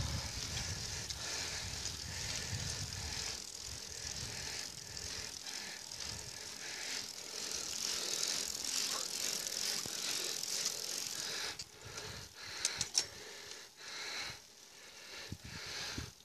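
Road bicycle ridden uphill: a steady hiss of wind and tyres on tarmac, with light rattling from the bike. It goes quieter in the last few seconds, with a few sharp clicks.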